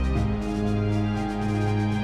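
Background music: sustained synth chords over a bass line that changes note every second or so.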